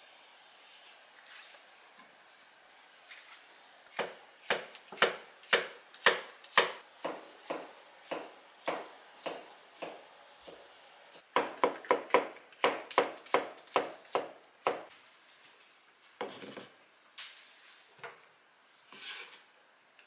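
Kitchen knife slicing mushrooms on a wooden cutting board: a run of sharp knocks of the blade on the board about two a second, then a quicker run of about three a second. Near the end come a few softer scuffing noises.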